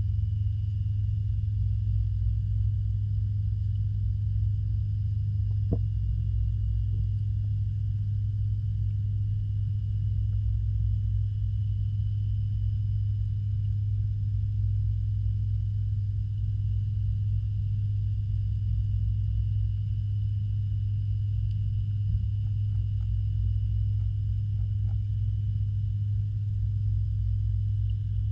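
Steady low hum of a pond filtration pump, heard underwater, with a few faint ticks.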